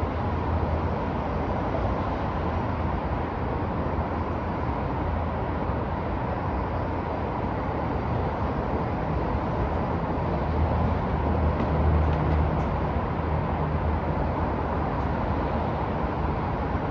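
Downtown street traffic: a steady wash of passing vehicles with a low engine rumble that swells for a moment about two-thirds of the way through as a heavier vehicle goes by.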